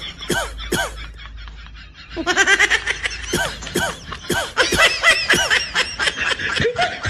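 Laughter in short repeated bursts, about two or three a second. It lulls about a second in, then comes back higher and faster from about two seconds in.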